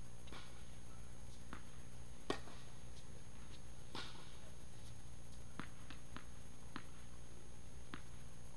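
Sharp knocks of tennis balls bouncing and being hit on a hard indoor court, about nine in all, the sharpest a little over two seconds in, over the steady low hum of the hall.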